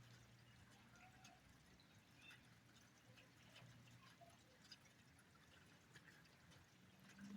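Near silence, with faint scattered ticks and a low steady hum.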